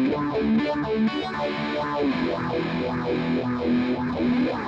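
Electric guitar played through an analog phaser pedal, the phaser switched on. A few picked notes give way to a held note about two seconds in, while the phaser's whooshing sweep rises and falls over and over.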